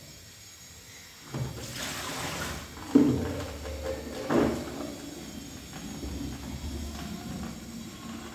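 Washing up at a kitchen sink: water splashing, and a plastic colander and basin knocking against the sink. A brief splash comes about a second and a half in, the loudest knock about three seconds in and another a second and a half later.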